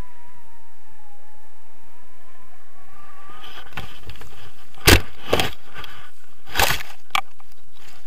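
Tandem paraglider touching down on grass: a run of thuds and scrapes from the harness and feet hitting the ground, four sharp knocks between about five and seven seconds in, the first the loudest. Before the touchdown, rushing air with a faint wavering whistle.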